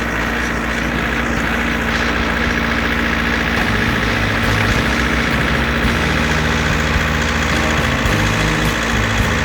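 Tractor engine running steadily under load, heard from the tractor, with a continuous low drone.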